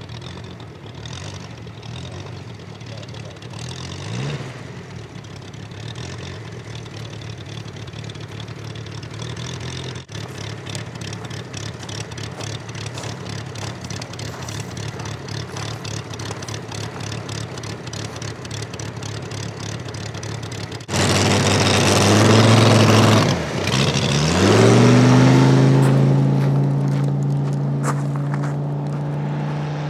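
Mokie 250 engine of a large radio-controlled P-47 model running at low throttle while taxiing, then opened up to full power about 21 s in for the takeoff run. A couple of seconds later its revs sag sharply and pick back up, then it holds a high steady note that fades as the plane climbs away.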